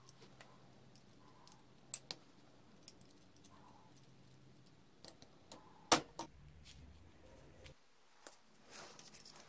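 Scattered sharp metal clicks and clinks as pliers grip and work on a small clamp-on bench vice. The loudest click comes about six seconds in, and there is a quick run of small clinks near the end.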